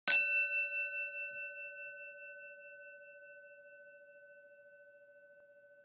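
A single stroke on a small bell, struck once and left to ring, its tone fading slowly over several seconds.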